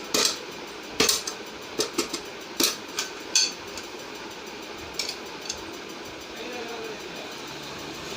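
Hard clicks and clacks of an LED bulb housing and its parts being handled and opened, about nine sharp knocks, most in the first three and a half seconds, the last two near five and five and a half seconds.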